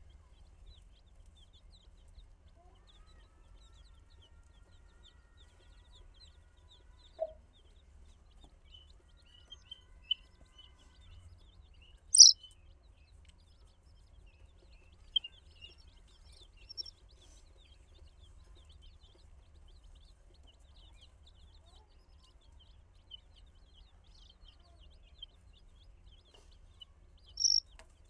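A flock of baby chicks peeping continuously, many short high cheeps overlapping, with a few louder single cheeps standing out, the loudest about twelve seconds in and another near the end.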